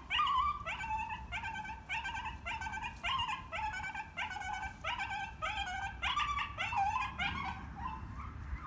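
A dog whining over and over in short, high-pitched cries, about two a second.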